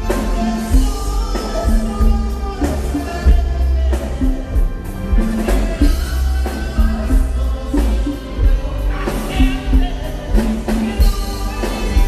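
Live norteño band music: a button accordion and a man singing over a drum kit, congas and a heavy, steady bass.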